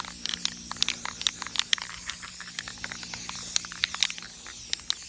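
Aerosol spray paint can spraying in a steady hiss, with many quick sharp ticks and crackles over it.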